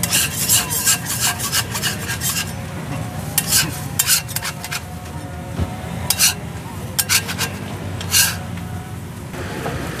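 Metal spatula scraping across a large round crepe griddle while loosening and folding a crepe. The scraping strokes come quickly for the first couple of seconds, then as short scrapes about every second until near the end.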